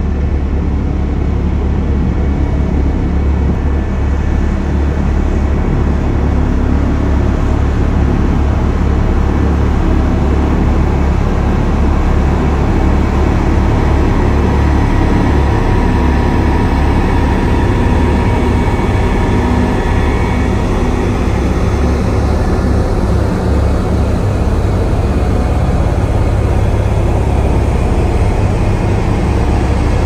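Several LiuGong single-drum road rollers driving in a line, their diesel engines running with a steady low rumble.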